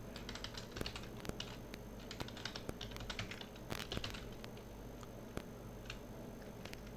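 Typing on a computer keyboard: a quick, irregular run of key clicks for about four seconds, then only a few scattered keystrokes.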